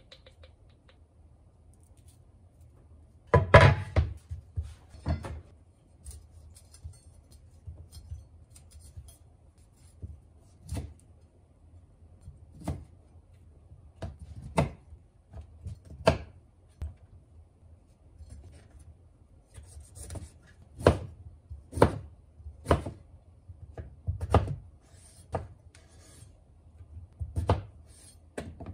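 Kitchen knife knocking on a wooden cutting board as broccoli is cut up, with single knocks every second or two and a louder clatter about three seconds in.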